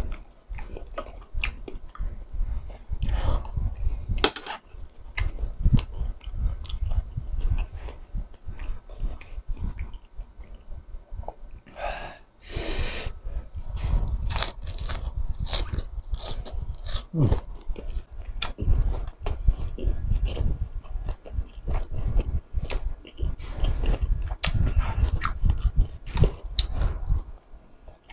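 Close-miked chewing of crispy chicharon bulaklak (deep-fried pork mesentery), with many sharp crackling crunches over steady mouth sounds. A brief loud hiss comes about halfway through.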